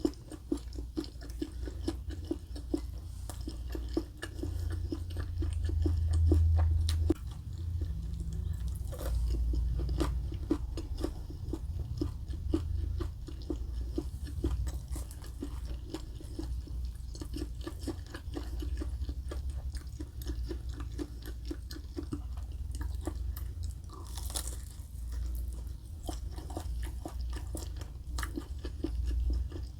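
A person chewing and biting a meal of chicken katsu, rice and macaroni salad close to the microphone, with steady chewing and many small irregular crunches.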